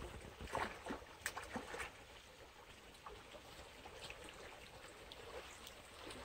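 Water splashing as a hooked eel thrashes at the surface and is pulled out, a cluster of sharp splashes in the first two seconds, then the steady trickle of flowing canal water.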